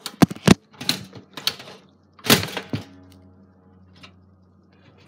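Kitchen clatter: several sharp knocks and clicks of things being handled on a hard surface, the loudest a little over two seconds in.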